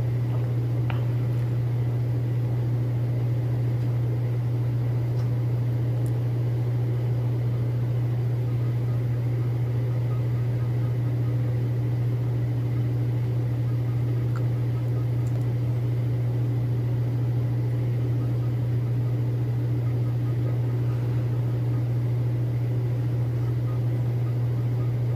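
A steady low hum, like a machine or motor running, unchanging throughout, with a few faint short high sounds now and then.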